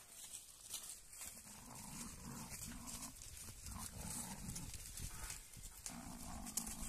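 A flock of sheep on the move, several of them bleating repeatedly in short calls.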